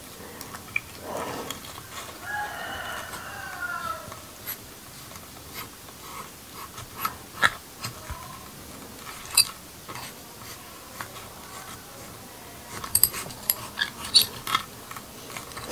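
Sharp clicks and taps from fingers handling a spiny cactus pad, loudest near the middle and in a cluster toward the end. About two seconds in, a rooster crows once in the background, a call lasting about two seconds.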